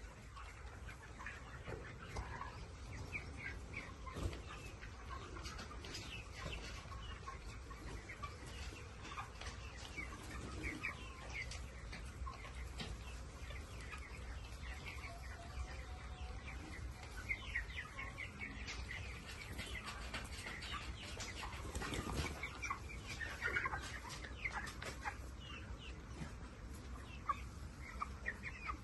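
Many chickens clucking and calling at once, short overlapping calls with no break, over a low steady hum.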